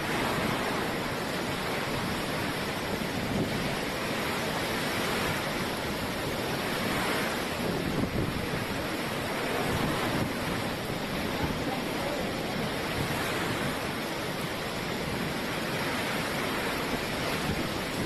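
Eyewall winds of a Category 5 hurricane with driving rain: a dense, steady rushing noise that swells and eases a little every few seconds.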